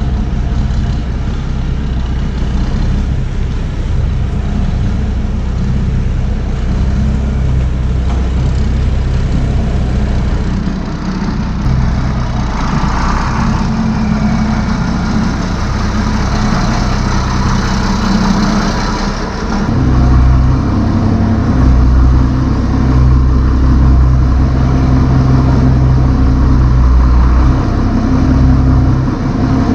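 Farm tractor engine running steadily while moving equipment, growing louder about two-thirds of the way through as it is throttled up.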